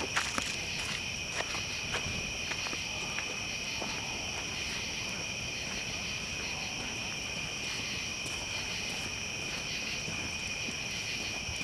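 Steady high-pitched chorus of night insects trilling, with a few sharp crackles and pops from a large campfire in the first couple of seconds.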